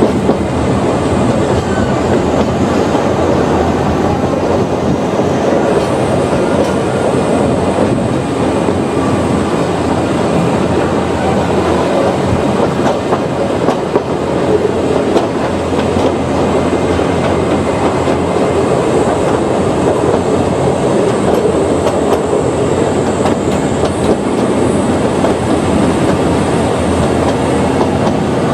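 Ōigawa Railway Ikawa Line train running along the track: a steady, even rumble of wheels on rails.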